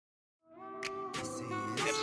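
Silence, then a music track starts about half a second in, with held chords and sharp percussive hits.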